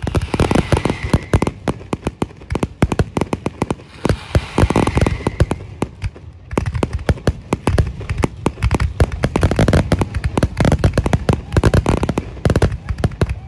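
Fireworks display going off: many bangs in rapid succession, overlapping one another, with a brief lull about six seconds in.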